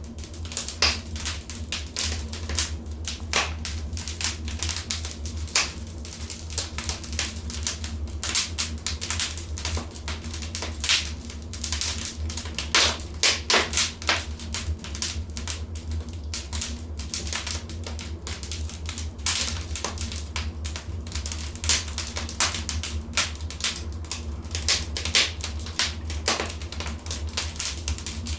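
Fireplace fire crackling: irregular sharp pops and snaps, several a second at times, over a steady low rumble.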